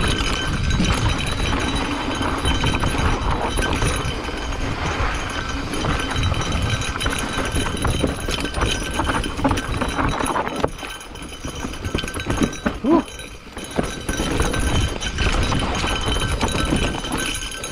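Specialized Turbo Levo e-mountain bike clattering and rattling over rough trail on a descent, with a steady rumble of tyres and wind. It eases off for a few seconds past the middle, with a couple of sharper knocks, then picks up again.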